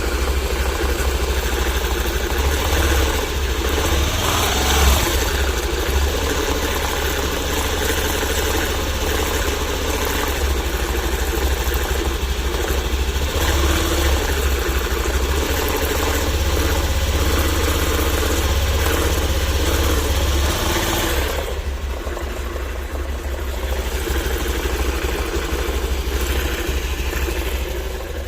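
Honda Activa scooter's single-cylinder four-stroke engine running at idle, with a brief rise in pitch about four to five seconds in. The sound is the noise the owner cannot explain and takes for a clutch problem. About three-quarters of the way through, the sound goes duller and a little quieter.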